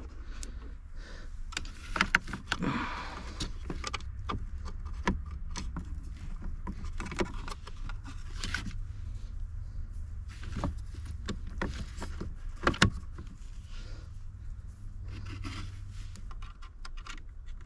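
Irregular clicks, taps and knocks of a hand driver and small screws working against the plastic mounting tabs of a car's security gateway module under the dashboard, over a steady low hum.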